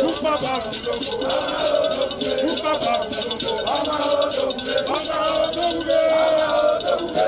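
Rapid, continuous strikes of a metal bell over a group of voices singing together.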